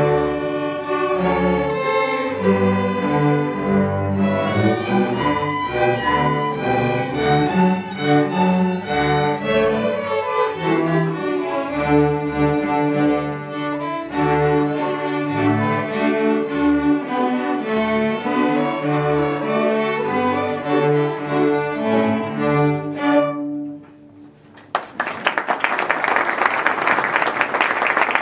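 A string orchestra of violins, cellos and double bass playing a piece, which ends near the end; after a brief pause an audience applauds.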